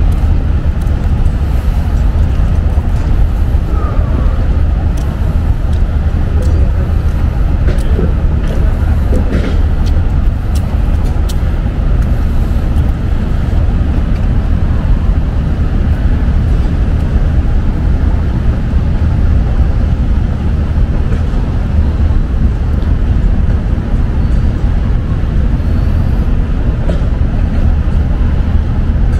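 Steady city traffic noise: a loud, continuous rumble of road vehicles, with a few faint clicks on top.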